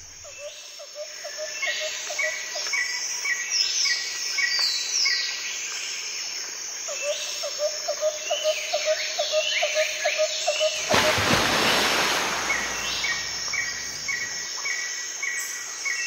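Birds chirping and calling over insect chirps, with a quick repeated trill coming and going. About eleven seconds in, a rushing noise swells for about two seconds, then the chirping carries on.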